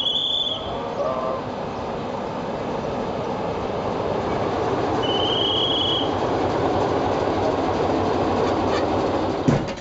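Diesel locomotive hauling a passenger coach slowly past, its engine and wheels on the rails making a steady rumbling noise that grows louder as it draws near. A short, high, steady tone sounds at the start and again about five seconds in, and a sharp clank comes just before the end.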